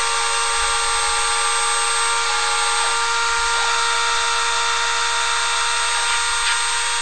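High-speed spindle of a small CNC milling machine running steadily: a constant high-pitched whine of several fixed tones over a loud hiss.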